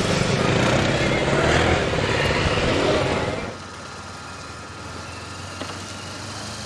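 Motorcycle engines revving hard with pitch rising and falling, then a cut about three and a half seconds in, after which it drops to the quieter, steady low hum of a motorcycle running at low speed.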